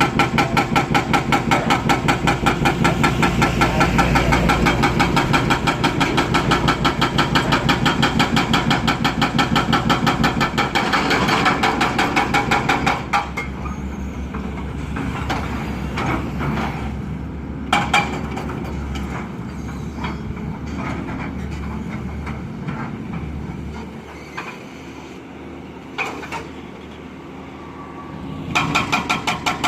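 Demolition breaker hammering concrete in a fast, even rhythm. It stops about 13 seconds in, leaving a machine engine running with a couple of single knocks, then starts hammering again near the end.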